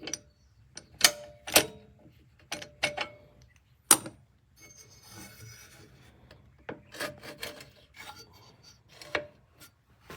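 A string of sharp knocks and clacks, several with a short ring, and a stretch of scraping about halfway through: objects being handled and set down.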